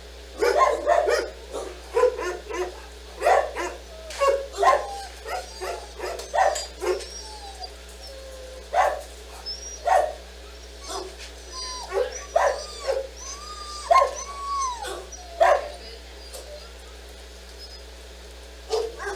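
Dogs barking in quick short barks, with a few whines mixed in about twelve to fifteen seconds in; the barking stops a few seconds before the end.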